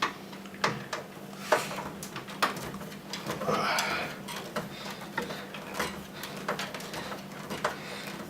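Scattered light metal clicks and clinks with a short scraping sound about three and a half seconds in: a screwdriver undoing screws and a steel expansion-slot cover plate being worked out of a PC case.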